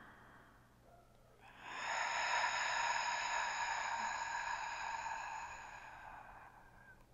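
A long, audible exhale through the mouth, a yogic cleansing breath, rising about a second and a half in and fading away over about five seconds.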